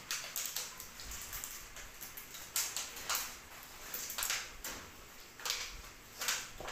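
Pocket bully puppies scuffling at play on concrete, chewing a plastic bottle and tugging a rope: a run of short, irregular scratchy scrapes and crinkles.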